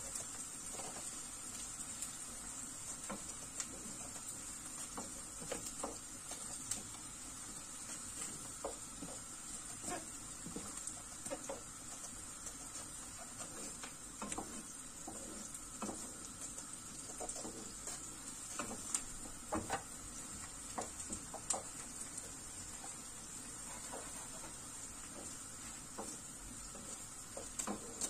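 Small kitchen knife peeling strips of skin off an eggplant: irregular light clicks and scrapes of the blade against the skin, over a steady high hiss.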